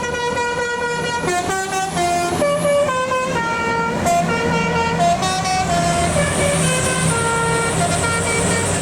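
Bus telolet horn: a multi-tone air horn on a bus playing a tune, one held note and then a quick run of changing notes, over the bus's engine running.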